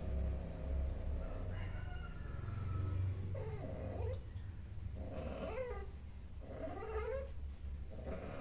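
Cat yowling during mating: a series of about four drawn-out, rising-and-falling calls from about three seconds in, over a low steady hum.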